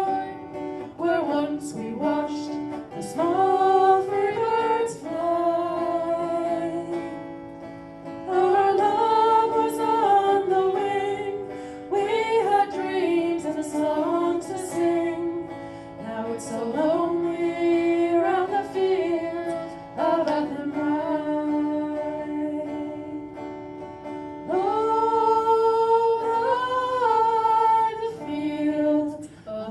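Live Celtic folk music: a melody in long phrases of a few seconds over plucked guitar accompaniment.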